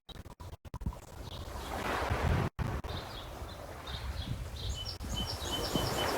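Lake waves washing with wind buffeting the microphone, and small birds chirping repeatedly from about three seconds in. The sound drops out briefly several times in the first second and once about two and a half seconds in.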